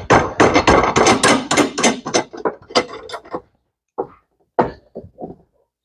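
A quick, irregular run of metal clicks and knocks from hand tools and a mechanism puller being worked on a washing machine's agitator mechanism, followed by four separate knocks after a short pause.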